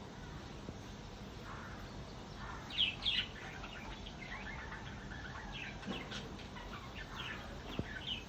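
Cockatiel chirping: two louder calls about three seconds in, then a run of short, quick chirps.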